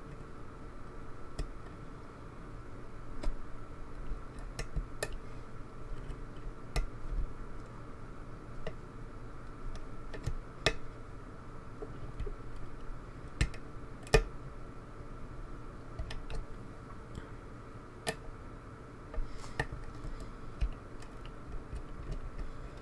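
Lock pick and tension bar working the pins of a pin-tumbler lock: light, irregular metallic clicks and ticks as the pick lifts and taps the pins, with no pin setting to open it. A faint steady hum sits underneath.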